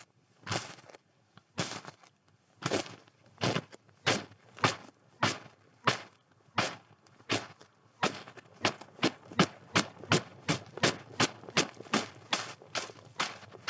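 Footsteps crunching in snow, an even walking pace of a little more than one step a second that quickens to about three steps a second about eight seconds in.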